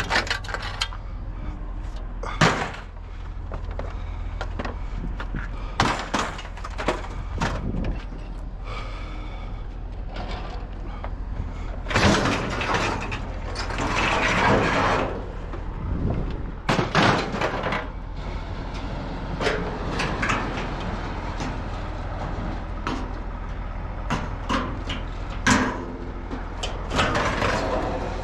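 Scrap being unloaded by hand from a truck: a string of irregular clanks, bangs and scrapes, with longer scraping and rattling stretches about halfway through, over a steady low hum.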